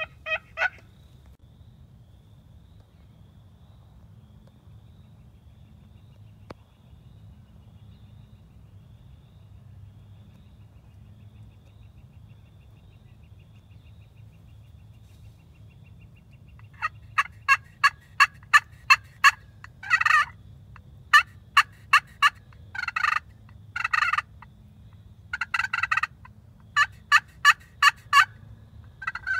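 Wild turkeys calling. There is a brief call right at the start. After a long quiet stretch, a loud run of quick sharp notes begins a little past halfway, broken by several longer gobbles.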